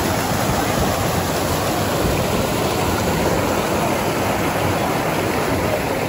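Waterfall cascading over rock ledges into a pool, heard close up: a loud, steady rush of water.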